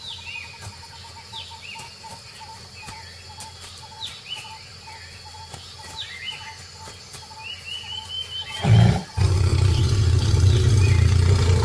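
Birds calling with repeated short, falling chirps. About nine seconds in, a tiger gives a sudden loud, low growl lasting a few seconds: a tigress warning off an approaching male.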